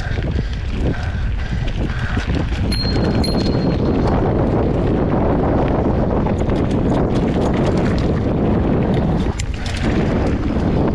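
Mountain bike riding fast down a dirt singletrack: tyres rumbling over the dirt and the bike rattling and clicking over bumps, with wind buffeting the microphone. The noise eases briefly about nine seconds in.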